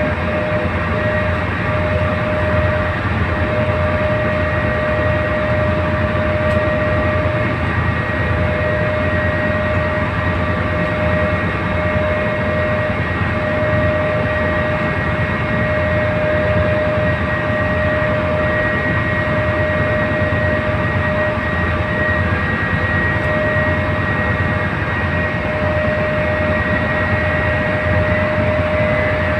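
Tugboat's diesel engine running steadily under load while towing a barge: a deep rumble with a steady whine over it.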